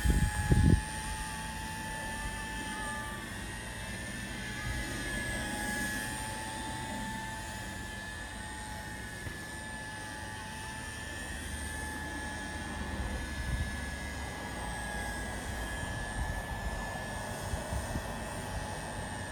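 Align T-REX 150X micro electric RC helicopter flying: a steady high whine from its motor and rotor that wavers slightly in pitch, over a low rumbling noise, with a brief loud low buffet in the first second.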